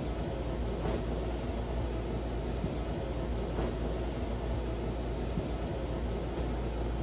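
Silkon UCC-52 ceiling fan running, a steady low motor hum with a constant drone, with two faint clicks about a second and three and a half seconds in.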